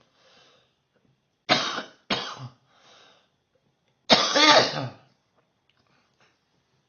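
A person coughing: two sharp coughs about a second and a half in, a quick breath, then one longer cough about four seconds in.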